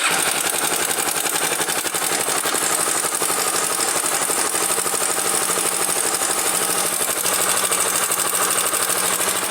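Honda Twister motorcycle's single-cylinder engine idling with a steady metallic rattle that sounds much like the cam chain: the mechanic suspects a slack cam chain or a faulty cam chain tensioner.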